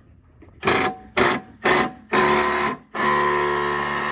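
A power tool working a stuck fastener on the car's front end: three short trigger blips about half a second apart, a longer burst, then a steady run with a hiss and a constant motor whine. The fastener will not come out.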